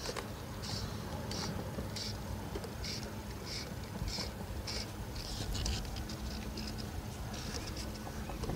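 Fly line being pulled by hand in quick strokes, a short high rasp with each pull, about two a second, tailing off after about six seconds.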